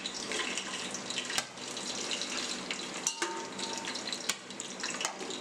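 Whole spices sizzling and crackling in hot vanaspati (Dalda) in an aluminium pot while a steel spoon stirs them, with a couple of sharp clicks of the spoon against the pot.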